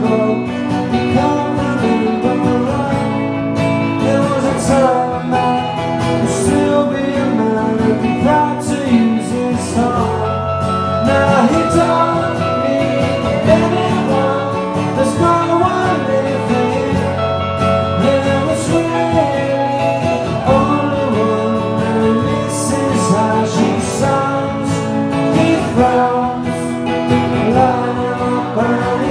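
A male singer singing live with his own strummed acoustic guitar.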